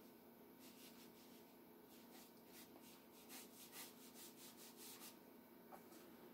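Faint scratchy rubbing of a fine round watercolour brush drawn across paper, in a run of short strokes that are busiest in the middle.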